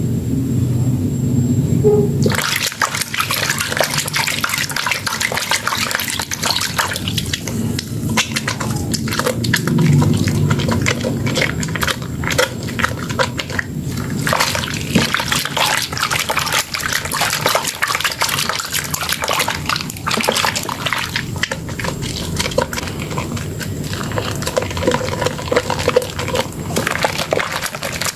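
Wet hands rubbing and squeezing a soaked bar of Dermythol Green soap in a basin of water: dense squelching, sloshing and crackling of lather. It starts about two seconds in, after a low hum.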